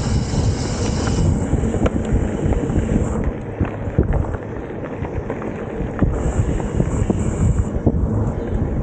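Mountain bike riding fast along a dirt singletrack: wind buffeting the camera microphone and tyres rumbling over the trail, with frequent clicks and rattles from the bike over bumps.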